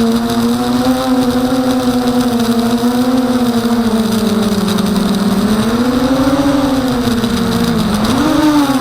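Emax 250 Nighthawk quadcopter's brushless motors and propellers whining in flight, the pitch rising and falling with throttle. It sags low about seven to eight seconds in, then climbs back up.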